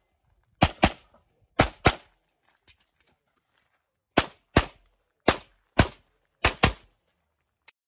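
Handgun fired in quick pairs of shots: two pairs, a pause of about two seconds, then three more pairs, ten shots in all.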